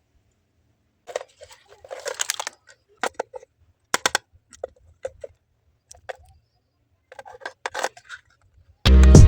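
Small parts being handled: scattered sharp clicks and taps with short bouts of rustling, between stretches of quiet. Loud background music cuts in near the end.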